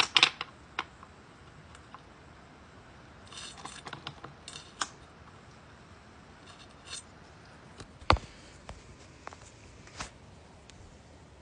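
Scattered sharp clicks and knocks, with a few short scratchy strikes about three to five seconds in and again near seven seconds, from fumbling to light an incense cone.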